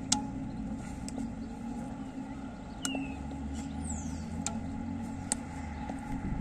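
Steady low rumble of distant traffic, with a few sharp taps from a tennis ball being struck and caught in a catching drill. Two short falling chirps come in the middle.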